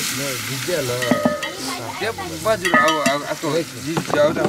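Hot oil sizzling in a pot over a wood fire while a stick stirs it.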